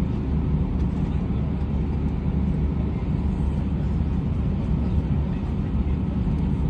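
Steady low rumble inside an Airbus A320's passenger cabin with the engines running, with faint steady tones above it and no change in level.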